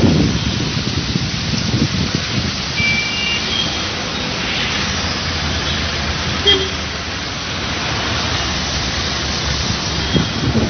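Road traffic in the rain: vehicles passing with tyre hiss on wet tarmac over a steady wash of rain noise, with low rumbling surges near the start and end and a brief sharp sound about six and a half seconds in.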